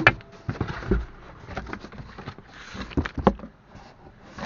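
Irregular knocks, taps and light clatter, loudest at the start and again about three seconds in.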